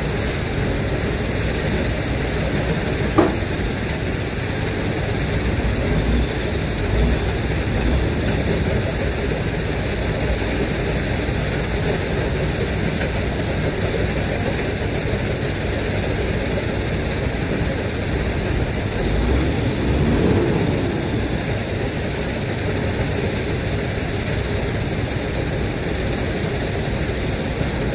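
Scania P94 tipper truck's diesel engine running steadily while the hydraulic tipper body is lowered. There is a single sharp knock about three seconds in.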